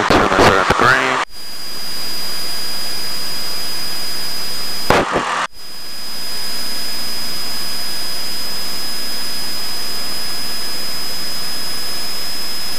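Cessna 172 engine and propeller at full takeoff power, heard inside the cockpit as a steady, even drone with a faint constant high whine. The sound drops out briefly about five seconds in, then fades back up.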